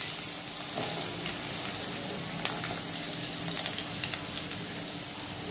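Chopped onions frying in hot oil in a kadai, just added: a steady sizzling hiss with many fine crackles.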